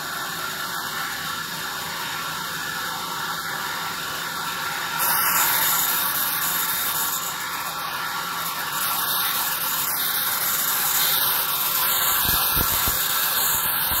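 Vertical band sawmill cutting lengthwise through a log, a steady hissing rasp of the blade in the wood that gets louder about five seconds in.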